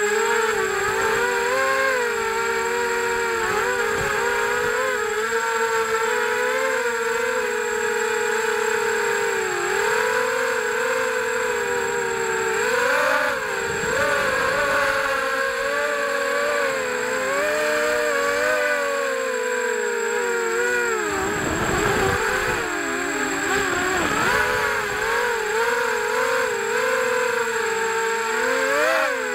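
FPV quadcopter's brushless motors whining, heard from the onboard camera. The pitch rises and falls with the throttle and dips sharply and wavers about three-quarters of the way through before climbing again.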